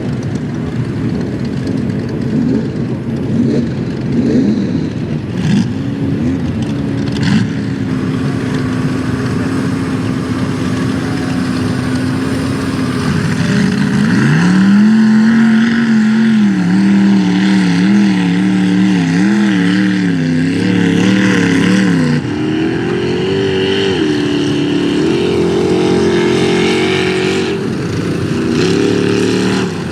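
Truck engine in a mud bog run, first holding a steady pitch, then revved hard about halfway through, the revs rising and falling over and over before climbing higher near the end.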